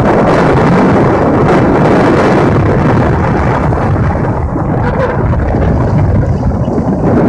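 Loud, steady rumble of wind buffeting the microphone of a skier moving downhill.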